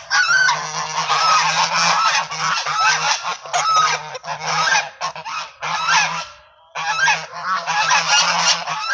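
A flock of domestic geese honking loudly, many overlapping calls one after another, with a brief pause a little past six seconds before the honking resumes.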